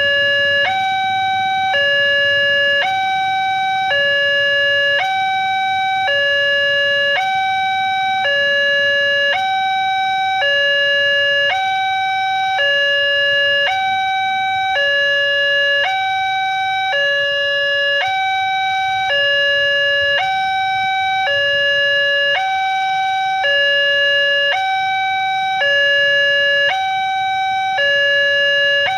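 Railway level-crossing warning alarm sounding a steady two-tone electronic chime, alternating a lower and a higher note about once a second. It is the warning that a train is approaching while the crossing barrier is down.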